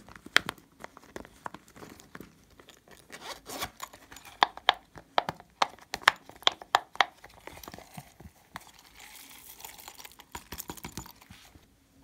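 Sticky slime being pressed and peeled out of a silicone butterfly mould: tearing and crackling, with a run of sharp, loud clicking pops through the middle, then a softer drawn-out peeling hiss near the end.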